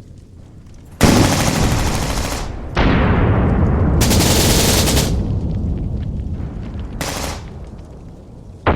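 Battle sound effect: automatic machine-gun fire in three separate bursts, with a deep rumble that swells about three seconds in and slowly fades under the firing.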